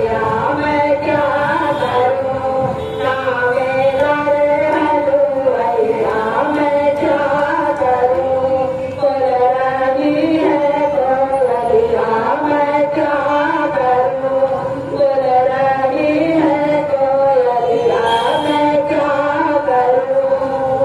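A woman singing a Hindu devotional bhajan to the goddess into a handheld microphone, one unbroken melodic line.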